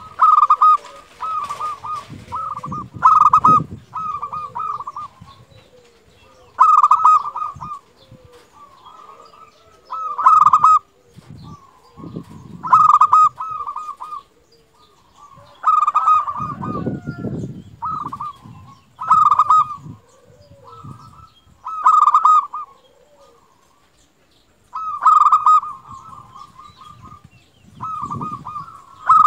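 Zebra dove (perkutut) singing: short phrases of rapid staccato cooing notes, repeated every two to three seconds.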